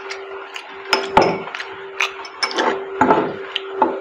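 Irregular sharp knocks and clinks of a glass footed bowl and a metal fork being handled on a tabletop, over a steady low hum.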